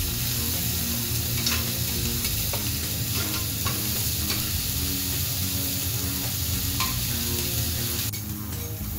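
Beef cubes, bacon and diced onion sizzling steadily on a hot flat-top griddle, with a few sharp clicks as the food is moved around with a spatula. The sizzle drops off a little about eight seconds in.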